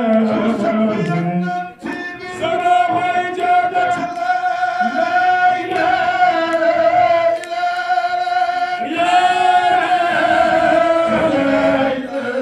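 Men's voices chanting a devotional song into microphones, several singing together in long held notes. The singing breaks off briefly about two seconds in.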